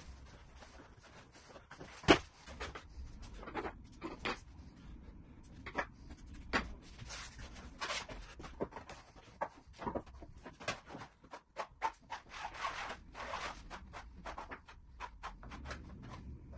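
Scattered knocks, clicks and scrapes of hand work on a vinyl plank floor: a glued vinyl plank being pulled up and the bare subfloor scraped and smoothed over with a trowel of filler. One sharp knock about two seconds in is the loudest, and longer scraping comes around the middle and again later.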